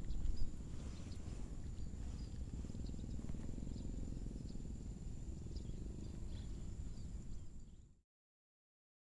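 Outdoor ambience: a low rumble of wind on the microphone, with a steady high-pitched tone and faint scattered chirps above it. It fades out to silence shortly before the end.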